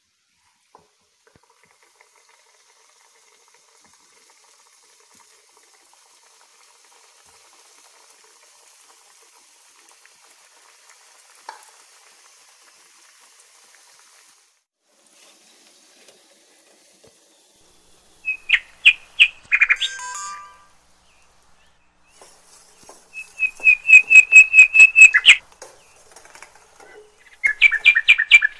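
Faint sizzle of bhadusha dough frying in oil, then three loud bursts of rapid high-pitched chirps from a bird calling, starting about 18, 23 and 27 seconds in.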